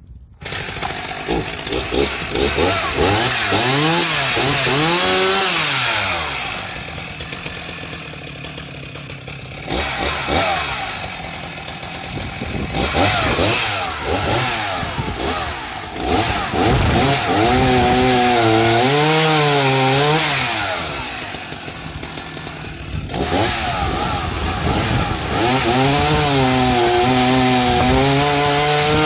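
Husqvarna Rancher 61 two-stroke chainsaw starting up about half a second in, then running and revving up and down repeatedly as it cuts through timber with a freshly sharpened chain.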